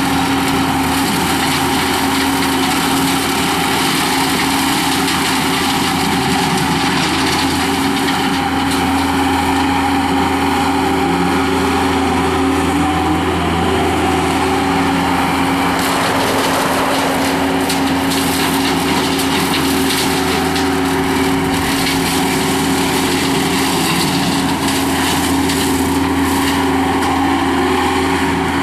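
Skid steer loader engine running steadily at high speed, driving a CID Xtreme 60-inch brush cutter attachment. The pitch wavers briefly a little past halfway.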